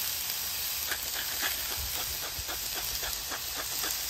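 Sliced onions and bell peppers sizzling in avocado oil on a hot flat-top griddle: a steady hiss, with frequent small crackles from about a second in.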